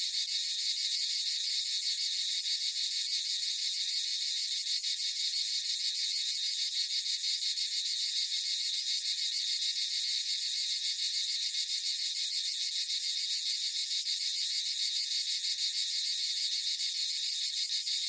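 Crickets chirping in a steady, dense chorus of fast high-pitched trills, the familiar crickets sound effect.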